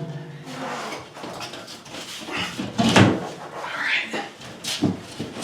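Dog barking, a few separate barks with pauses between them, one about halfway through and another near the end.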